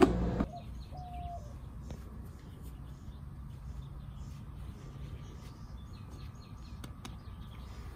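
Faint bird chirps over quiet outdoor ambience with a low steady rumble, after a louder sound cuts off about half a second in.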